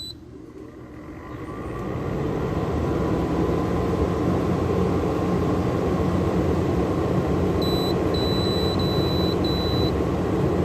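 Frigidaire window air conditioner switched on: one short electronic beep from its control panel, then its Welling fan motor spins up over about two seconds to a steady rush of air. About eight seconds in, a quick run of about five short beeps from the control panel. The compressor is not running yet, held off by the unit's three-minute start delay.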